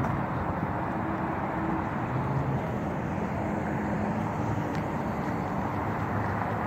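Steady hum of road traffic, with faint engine tones coming and going.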